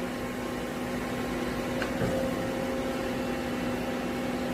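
Doosan Puma 600L CNC lathe running with its spindle turning at speed: a steady mechanical hum with a constant low tone, and a faint click about two seconds in.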